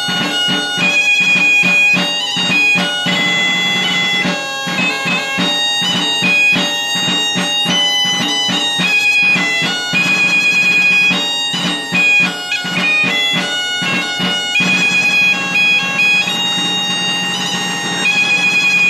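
Asturian bagpipe (gaita) playing a fast, ornamented tune over a steady drone.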